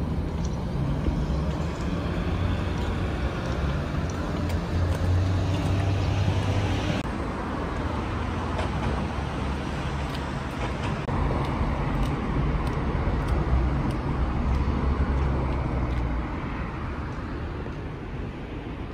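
Street traffic: the steady low rumble of cars running along a road.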